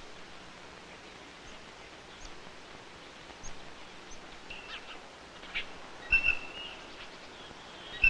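Black-capped chickadee calling over a steady hiss: a few faint high chirps, then about four and a half and six seconds in clear whistled notes held on one pitch, the second the loudest and broken briefly, with a couple of soft clicks.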